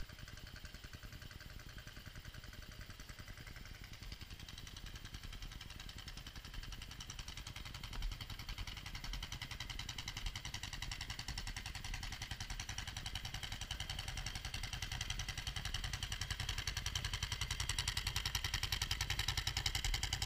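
Ducati GT1000's air-cooled L-twin engine idling with an even, steady pulse, slowly growing louder. A single brief knock sounds about eight seconds in.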